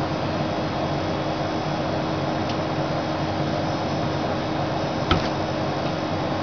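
Steady background hum and hiss, with a single sharp click about five seconds in.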